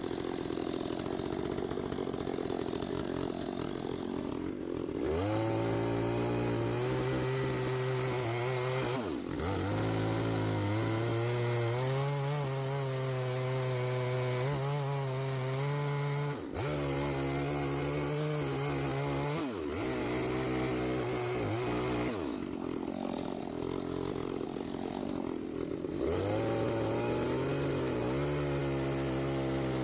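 Chainsaw cutting cedar, its engine held at a steady high pitch under load and revving up as each cut starts. The sound breaks off abruptly several times, as separate clips of the cutting follow one another.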